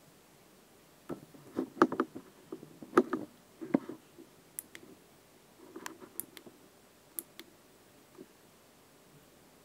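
Irregular clicks and light knocks from hands handling a hard yellow plastic object with a metal-lined hole. Some clicks are sharp and high, others duller.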